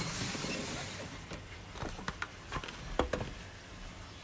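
Packaging being handled: a brief rustle of the box, then a few light knocks and taps as a cylindrical gift tube is lifted out and set down on a wooden table, the loudest knock about three seconds in.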